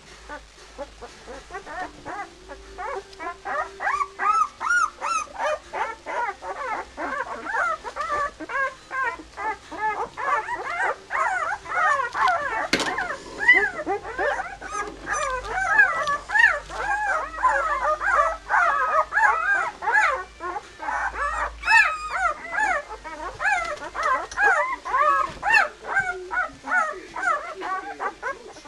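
A litter of nine-day-old Swiss White Shepherd puppies whining and squealing, many short rising-and-falling cries overlapping without a break. A single sharp click comes about thirteen seconds in.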